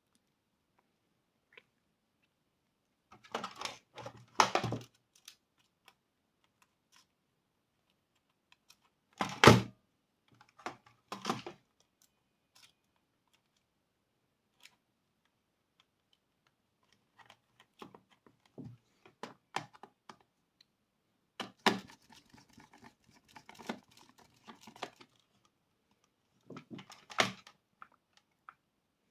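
Scattered clicks, rattles and knocks of hands working on a plastic intercom handset and its wiring, in short clusters with quiet pauses between, the sharpest knock about nine seconds in.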